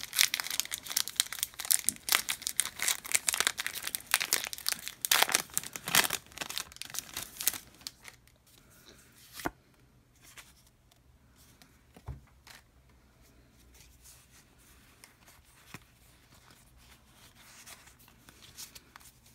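Pokémon TCG booster pack's foil wrapper being torn open and crinkling for about eight seconds. After that it goes mostly quiet, with a few faint clicks and rustles of the cards being handled.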